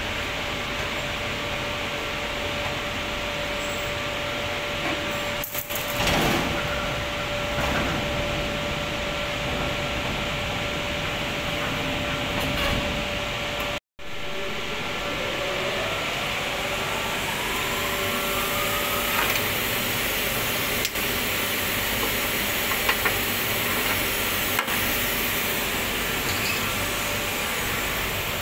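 Steady hum and rush of a cremation furnace's machinery. After a break, a fan motor spins up with a whine that rises in pitch over about four seconds, then settles into the steady noise.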